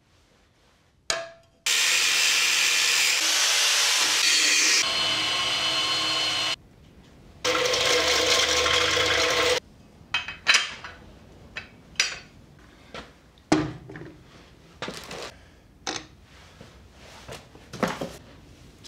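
A power tool working metal plate in two runs, one of about five seconds whose sound changes partway through, then one of about two seconds; after that, a scatter of sharp clicks and knocks.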